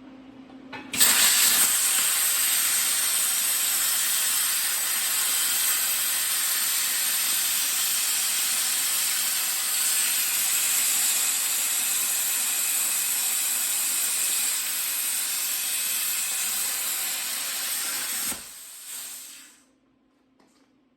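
Plasma cutter arc on an Arcdroid CNC table cutting 1/4-inch aluminum: a loud, steady hiss starts suddenly about a second in and runs for about 17 seconds. It then cuts off sharply, leaving a softer hiss that fades out over a second or so and a low steady hum.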